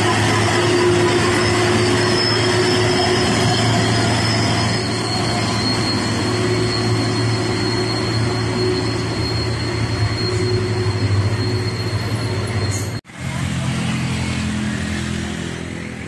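Hino 500 heavy truck's diesel engine pulling uphill past close by: a steady, loud drone with a faint high whine. About thirteen seconds in it cuts off abruptly and quieter traffic engines follow.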